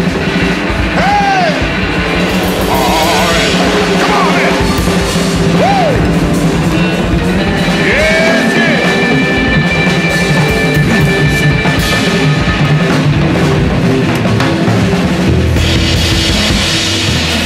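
A blues band playing an instrumental passage: drum kit and bass under a lead line of bent, arching notes, then a long held high note. Near the end the lead drops out and the drums and cymbals come forward.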